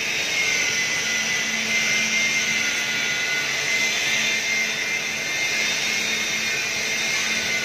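Workshop machinery running steadily: an even rushing noise with a high, steady whine over a low hum.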